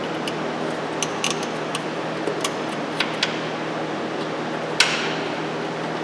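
Sharp metallic clicks and taps of hand tools and parts as a cleaned engine part is refitted, a handful of them spread out, the loudest about five seconds in, over a steady low hum.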